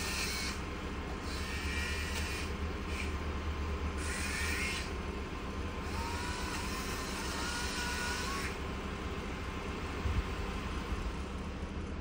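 Tree-service truck machinery running steadily with a low rumble, heard at a distance. Higher-pitched whining, hissing bursts come and go over it every second or two, with a longer rising whine about six seconds in.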